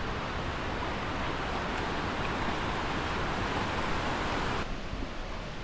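Steady rushing of water pouring over a concrete weir spillway, growing a little louder through the middle and dropping suddenly near the end.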